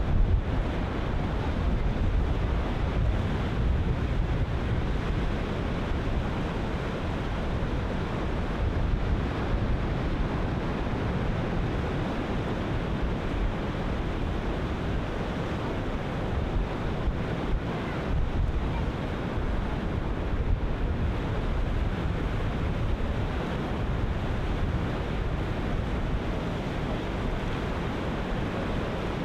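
Ocean surf breaking continuously as a steady wash, with wind buffeting the microphone in a low, fluttering rumble.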